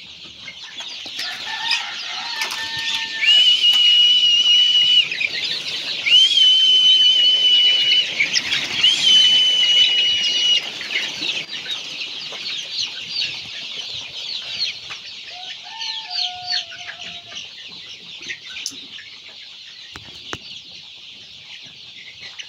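A large flock of forty-day-old Golden Misri chicks cheeping and chirping together in a pen. Around the middle, three long, level, high calls of about two seconds each rise above the chatter, and the flock is loudest there.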